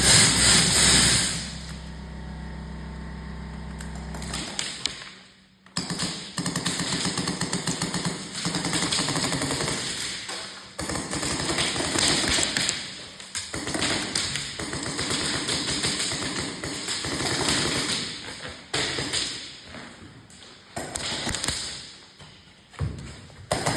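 Airsoft guns firing rapid full-auto bursts of a second or two each, one burst after another with short pauses between.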